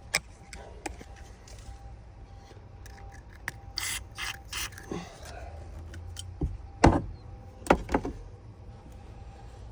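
Small metal clicks and scraping of a lock pick working in a worn 1990 Ford van ignition lock, with three or four short hissing spurts of spray lubricant about four seconds in.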